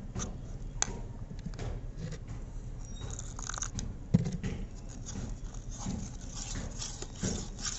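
A metal spoon stirring and scraping gram flour and water in a bowl, working it into a thick batter, with irregular clicks and scrapes. The sharpest knock of the spoon comes about four seconds in.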